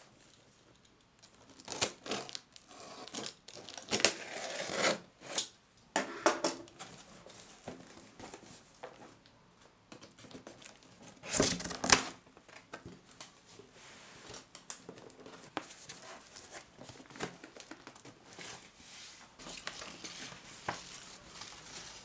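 A box cutter cuts through the packing tape on a cardboard box in short scraping bursts. Then the cardboard flaps are pulled open and paper rustles, with the loudest rush of cardboard and paper about halfway through.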